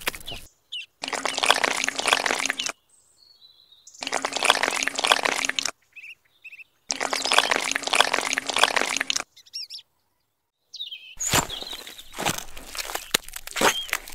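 Thin cement slurry poured from a small cup onto a miniature sand bed, in three pours of about two seconds each, with birds chirping briefly in the pauses between. Near the end come close scraping and tapping as the wet mortar is worked with a small tool.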